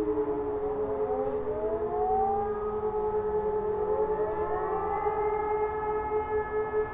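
Several distant civil-defence sirens sounding together in a test alarm, their tones overlapping at different pitches. One tone falls as its siren winds down near the start, while others rise as they wind up through the middle, over a steady pulsing tone.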